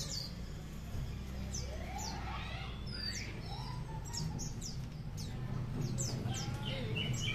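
Branjangan (Horsfield's bush lark) singing: a run of quick, sharp downward-sweeping chirps mixed with lower warbled notes, over a steady low background rumble.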